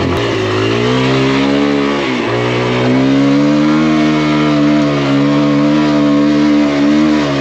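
Kawasaki KLX140 dirt bike's single-cylinder four-stroke engine pulling hard up a sandy hill climb. The revs rise at the start, dip briefly about two seconds in, then hold high and steady, with another short dip near the end.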